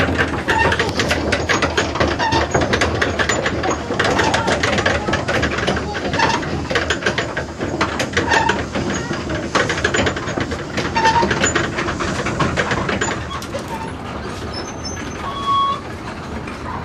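A row of large wooden Tibetan prayer wheels turning on their spindles, clattering and creaking in a dense run of clicks, with short ringing tones every second or so. The clatter thins out and gets quieter after about thirteen seconds.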